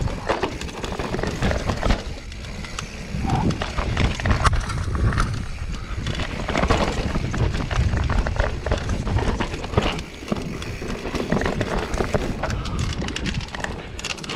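Mountain bike descending a rough dirt trail at speed: tyres on dirt and roots, the bike rattling and clattering over bumps in many quick knocks, over a constant low rumble.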